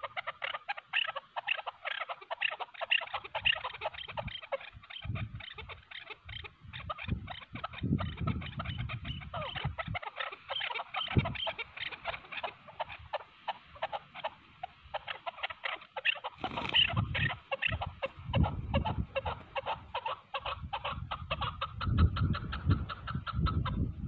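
Chukar partridges calling: a fast, continuous run of clucking 'chuk' notes that carries on almost without a break. Low thumps and rumbles come and go, strongest near the end.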